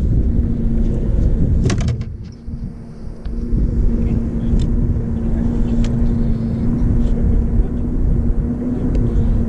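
A motor running steadily, with a constant hum over a low rumble. A short rattle of clicks comes a little under two seconds in, and the rumble eases for about a second and a half after it while the hum carries on.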